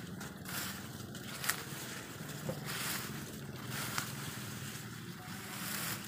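Footsteps and rustling through tall grass and brush, with a couple of sharp snaps of stems or twigs.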